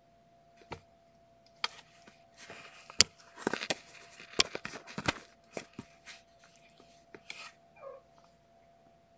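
Kittens tussling and scampering on a blanket in a pen: scattered rustles, scuffs and sharp clicks and knocks, busiest in the middle. A brief high squeak comes near the end.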